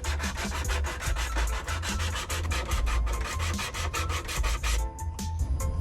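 Background music with a fast, even beat of hissing ticks over a deep bass line.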